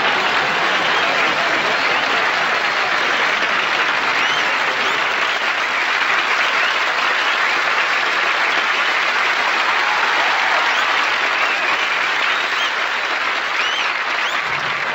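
Studio audience applauding steadily at the end of a stand-up comedy set.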